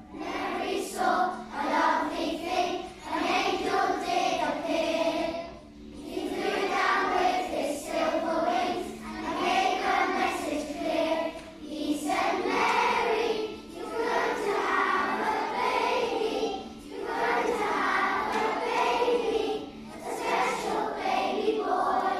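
Children's choir singing a carol, in phrases of a few seconds with short breaks for breath.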